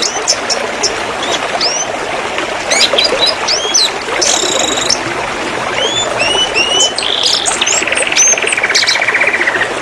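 Domestic canary singing: a quick string of short chirps and whistled upslurs, then, near the end, a fast buzzing roll lasting about two seconds that falls slightly in pitch. A steady hiss lies underneath.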